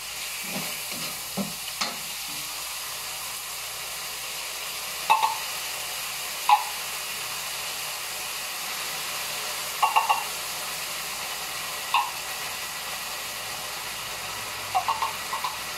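Food sizzling steadily as it sautés in hot oil in a wok, with a metal spatula clinking and scraping against the wok now and then, some strikes in quick runs of two to four.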